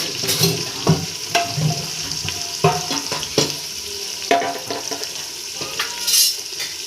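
Chopped onions sizzling as they fry in hot oil in a pressure cooker, stirred with a metal spoon that knocks and scrapes against the pot several times.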